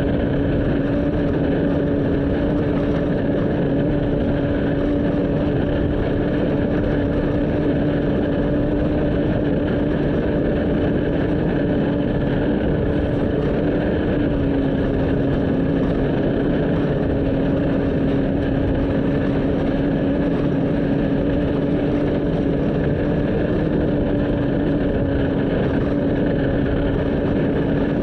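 Off-road race vehicle's engine running at steady revs under a constant rush of wind and terrain noise, its pitch dipping slightly about halfway through.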